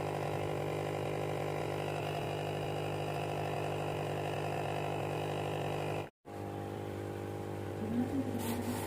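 Small DIY aquarium powerhead pump's electric motor humming steadily. The hum cuts out for a moment about six seconds in and then carries on, with a brief faint wavering sound near the end.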